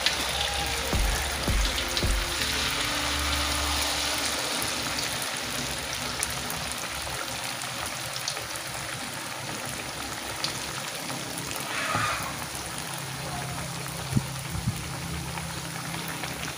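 Batter fritters of palm-oil mushroom deep-frying in a wok of hot oil: a steady, even sizzle with a few faint clicks.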